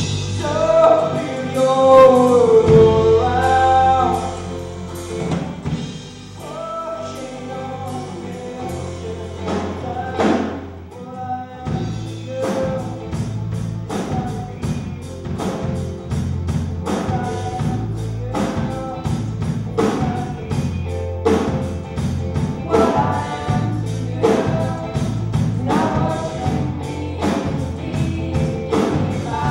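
Music with singing voices; a steady drum beat comes in about twelve seconds in and carries on under the song.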